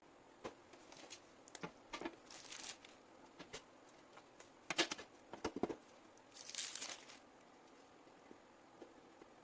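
Light handling noise: scattered small clicks and knocks, with two short rustles, the second one just under a second long.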